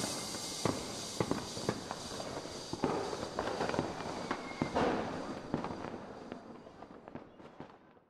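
Fireworks going off: irregular pops and bangs with crackling over a hiss, dying away and fading out near the end.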